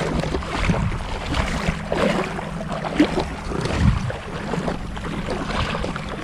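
Water sloshing and splashing as people wade through shallow seawater, in irregular splashes, over a faint steady low hum.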